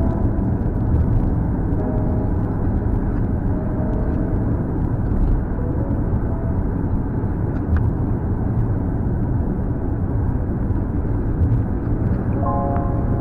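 Steady low road and engine noise inside a moving car's cabin. Background music notes come back in near the end.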